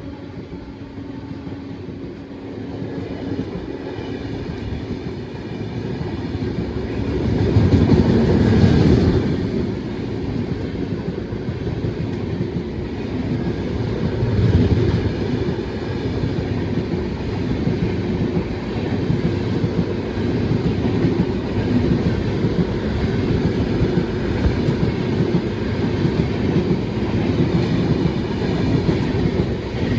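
Train running along the track: a steady rumble and rattle that swells louder about eight seconds in, then settles.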